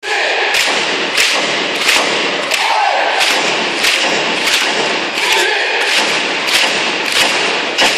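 Basketball arena crowd beating out a steady cheering rhythm, one sharp beat about every two-thirds of a second, over a din of crowd voices and shouts.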